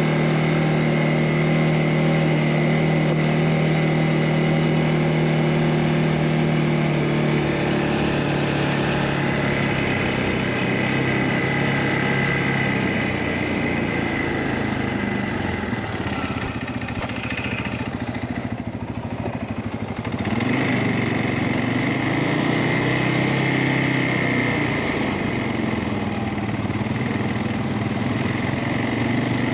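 CFMOTO ATV engine running while riding on a trail, holding a steady note for the first several seconds, then varying. It eases off briefly about two-thirds of the way through and picks up again.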